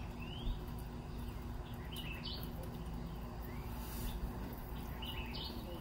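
Birds chirping, a few short calls, over a steady low hum of background noise.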